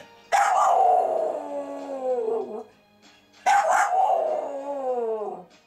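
Staffordshire bull terrier howling along to TV theme music: two long howls, each starting suddenly and sliding down in pitch, with the music playing faintly between them.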